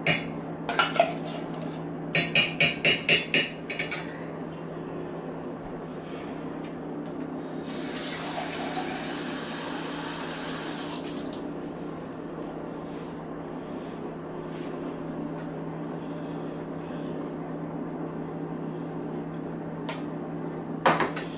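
A metal spoon clinking rapidly against cookware, about eight quick strikes about two seconds in, then a soft rushing scrape for a few seconds, over a steady low hum.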